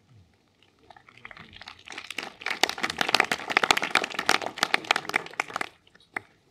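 Audience applauding: a dense patter of hand claps that swells about a second in and dies away near the end.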